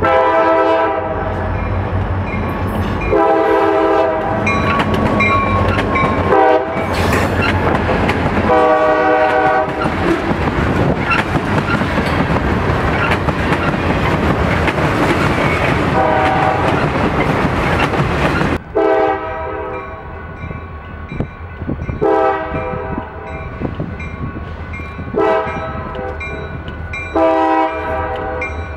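Diesel freight locomotive horn blowing the grade-crossing signal, long, long, short, long, over the rumble of the approaching train. The freight cars then roll past with a steady rumble and wheel clatter. After a sudden drop in level, another locomotive's horn sounds the same long, long, short, long pattern.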